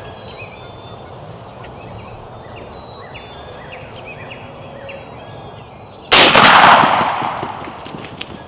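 Small birds chirping faintly, then about six seconds in a single loud .410 shotgun shot, its report fading away over about two seconds.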